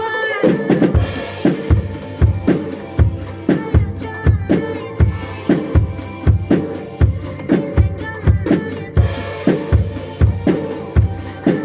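Drum kit played along to a pop song: kick drum about twice a second with snare and cymbal strokes in a steady groove over the recorded track.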